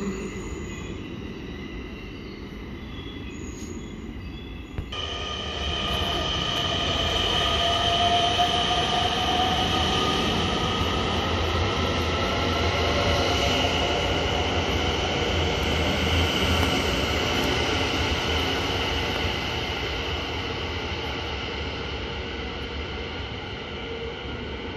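Dutch NS electric passenger train pulling out of an underground station platform: a rumble with a whine of several tones that sets in about five seconds in, rises slowly in pitch as the train gathers speed, then eases off as it goes into the tunnel.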